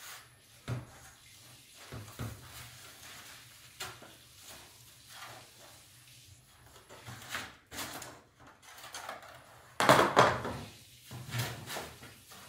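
Woven bamboo shade of an IKEA Knixhult lamp being handled: scattered light knocks, creaks and rubbing of the bamboo strips, with a louder knock and rustle about ten seconds in.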